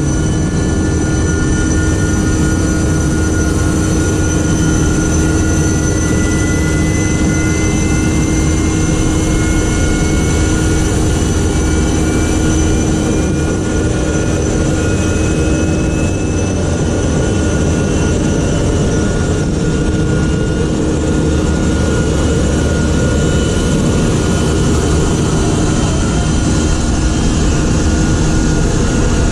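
Boeing 747-200F jet engines starting: engines 3 and 4 spooling up under a steady loud jet noise, with a thin turbine whine that rises slowly in pitch over the first half and a second rising whine later on.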